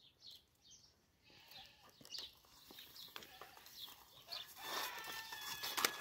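Faint farmyard sounds: small birds chirping on and off, a light rustling noise, and a drawn-out farm-animal call near the end.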